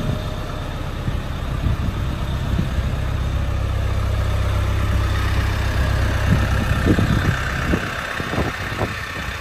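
1979 Land Rover 109 Series III Santana's engine idling with a steady low drone, which drops off sharply about eight seconds in. A few soft thumps come near the end.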